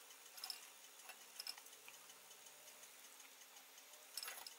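Near silence with faint, irregular small clicks and ticks from a pot of spiced water simmering under a glass lid, a few louder clicks near the end.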